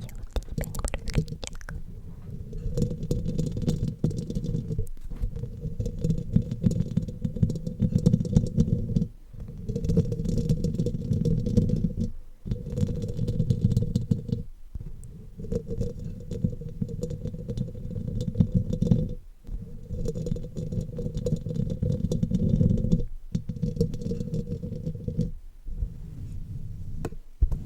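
An ASMR brush stroking across the microphone, giving a dense, low, rumbling scratch. It comes in about eight passes of two to four seconds each, with brief pauses between them.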